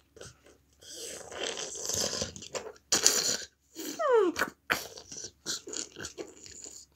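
Plastic LEGO bricks rustling, crunching and clicking as a hand rummages through them, loudest about three seconds in. A short falling tone comes about four seconds in.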